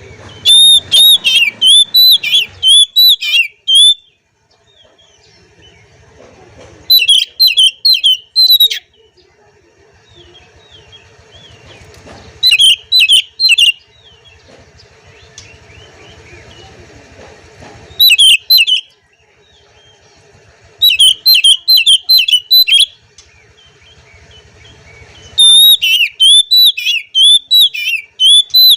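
Oriental magpie-robin singing its excited 'ngobra' challenge song, a song meant to provoke rival males. It comes in loud bursts of rapid, chattering whistled notes, each one to three seconds long, about six times with short pauses between.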